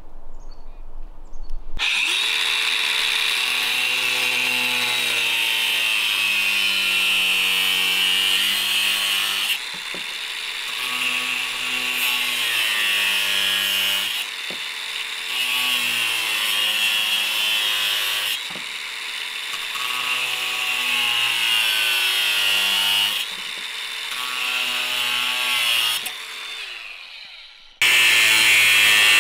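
Handheld angle grinder with a cut-off disc cutting through white PVC vent pipe. The grinder starts about two seconds in, and its motor pitch sags and recovers again and again as the disc bites into the pipe. Near the end it winds down, then comes back loud just before the end.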